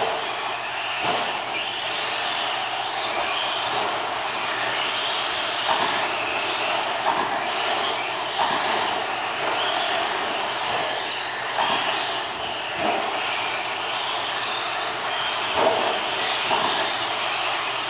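Several electric RC stadium trucks racing on a dirt track: a steady mix of high motor and gear whine and tyre noise, with a short knock every few seconds from landings or hits.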